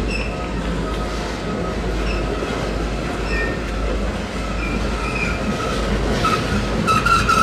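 Freight cars of a Norfolk Southern mixed freight train rolling by with a steady rumble, their wheels squealing in short, high-pitched bursts that come and go. The squealing grows louder and more frequent near the end.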